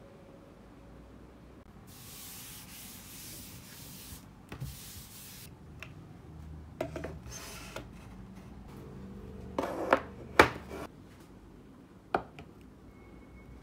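Objects being handled and set down on a wooden desk: a hissing rub from about two seconds in, in two stretches, then scattered knocks and clicks, the loudest pair about ten seconds in. Near the end a glass perfume bottle is set onto a clear acrylic riser with a click.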